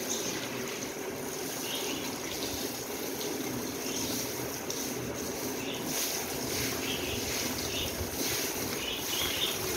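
Water running from a garden hose and splashing steadily onto a wet tiled floor as it is washed.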